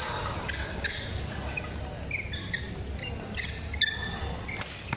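Badminton rally: sharp smacks of rackets hitting the shuttlecock, the loudest just before four seconds in, among short squeaks of court shoes on the floor.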